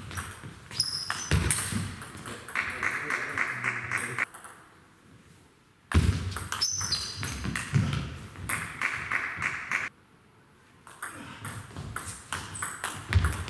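Table tennis ball clicking off rackets and the table in quick rallies, in spells of play broken by short quiet pauses.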